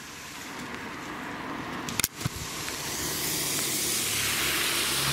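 Car tyres hissing on a wet road as the car approaches, the hiss swelling steadily. Two sharp clicks come about two seconds in, and a low steady engine hum joins from about three seconds.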